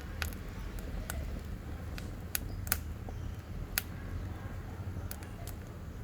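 Wood fire burning in the firebox of a wood-burning stove: a steady low rumble with sharp crackles and pops at irregular moments, a few of them louder than the rest.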